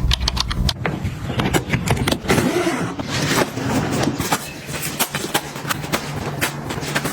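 Groceries and their packaging being handled and set down: a run of irregular sharp clicks and taps with rustling between them.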